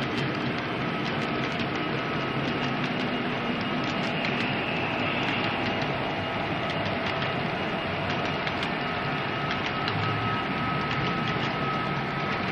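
Model railroad coal hopper cars rolling along the track: a steady mechanical rolling clatter of small metal wheels on rail, with faint scattered clicks.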